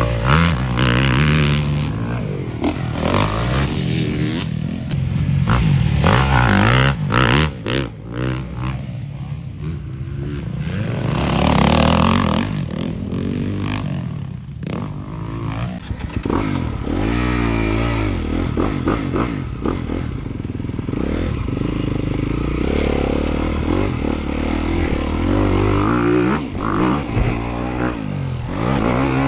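Dirt bike engines revving hard and repeatedly rising and falling in pitch as the bikes accelerate, shift and back off around a motocross track.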